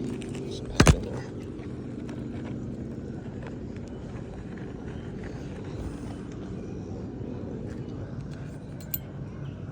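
Nailing a shingle down on an asphalt shingle roof: a sharp double strike about a second in and a lighter strike near the end, over a steady low hum.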